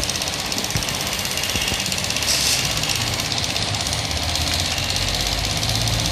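Small pump on a diesel filter test rig running steadily with a fast, even rhythm, drawing diesel mixed with water through the filter; a brief hiss about two seconds in.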